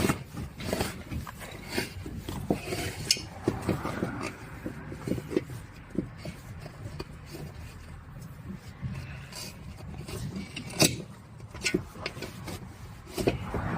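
Rubbing and scraping of the rubber inner tube being worked out of an electric tricycle's tyre by hand, with scattered clicks and knocks from handling it and the tools.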